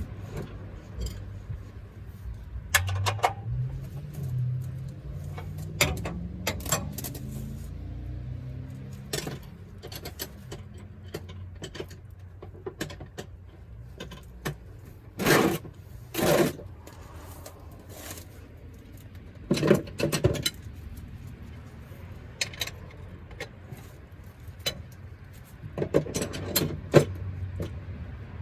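Metal tools and parts clinking and clanking: a dozen or so sharp, separate knocks, the loudest two coming about halfway through, over a steady low hum. During the first third a low tone rises in steps.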